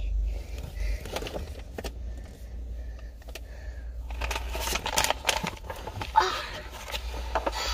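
Handling noise on a phone's microphone: fabric rubbing, scrapes and small knocks as the phone is moved about and set down against clothing and a car seat, over a steady low rumble.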